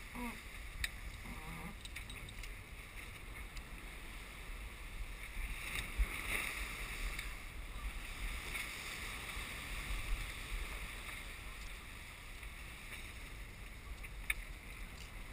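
Steady rush of wind and water on a sailing yacht under way through choppy sea, with a few brief knocks, the loudest about six seconds in.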